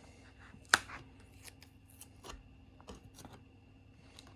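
Hands handling the contents and packaging of a Lego set: a single sharp tap about three-quarters of a second in, then scattered soft clicks and rustles.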